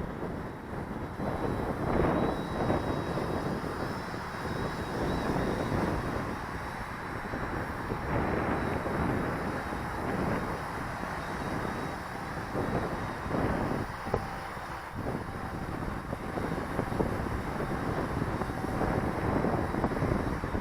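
Gusty wind buffeting the microphone in uneven swells, over the faint steady whine of a quadcopter's motors and propellers.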